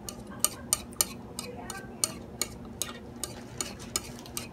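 Metal chopsticks clicking against each other and tapping the plate while picking up noodles: a string of sharp, irregular clicks, a few a second.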